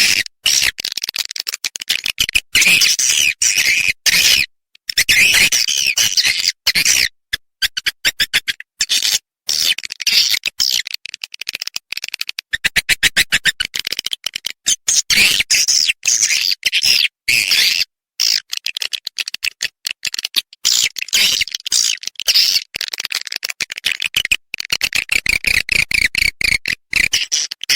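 Swiftlet calling-sound track: edible-nest swiftlets twittering in high-pitched chirps and fast trains of clicks, with short dead-silent gaps between phrases. It is a lure call played to draw swiftlets into a swiftlet house.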